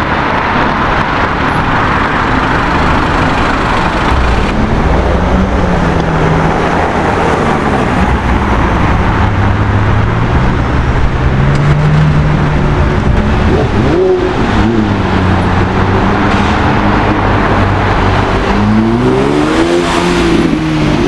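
Several supercar engines in turn, loud through their exhausts as the cars rev and accelerate away in traffic. The pitch rises and falls several times and climbs in quick steps near the end.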